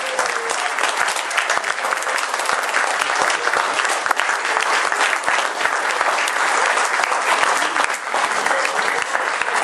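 A room of seated dinner guests applauding steadily.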